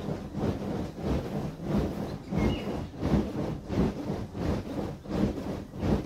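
Puffypaws Timber Wolf inflatable vinyl ride-on toy creaking and rubbing under a rider bouncing on it, about two bounces a second, with a brief squeak about halfway through.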